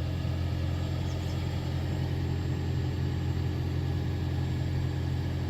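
Newly replaced heater blower motor of a 2013 Toyota Prius C running steadily, a low even hum with no rattle or squeal: the noise of the old motor is gone.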